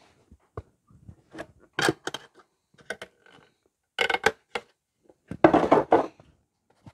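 Small workbench handling noises: scattered clicks and taps as a metal solvent can is picked up, handled and set back on a shelf, with a louder rustle lasting about a second near the end.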